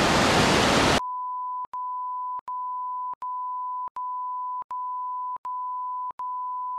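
Rushing river water over rocks for about a second, then it cuts off suddenly and a steady edited-in beep tone near 1 kHz takes its place, broken by short gaps about every three quarters of a second.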